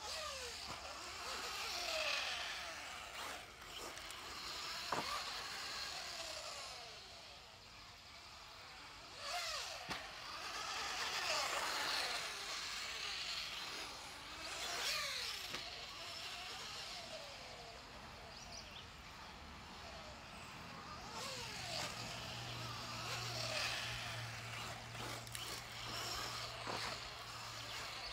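Associated B5M 2WD electric RC buggy running laps on a dirt track. Its motor and gears whine, rising and falling in pitch as it speeds up, slows and passes, with tyre hiss on the dirt that swells and fades. A few sharp knocks come from landings or hits.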